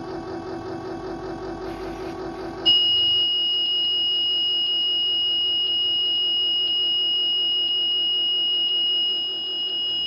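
School bus dashboard warning buzzer sounding one steady high-pitched tone from about three seconds in, after a low, rapidly pulsing hum at key-on. It goes with the instrument cluster's comm failure warning on a bus that won't crank.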